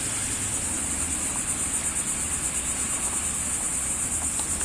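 Steady chorus of insects, a continuous high-pitched trill with a fine pulsing, over a faint low rumble.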